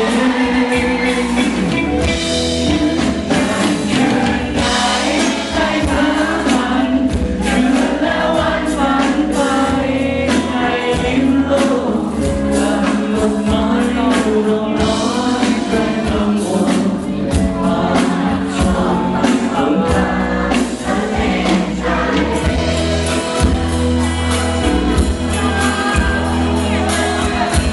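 Music: a song with singing over full band accompaniment.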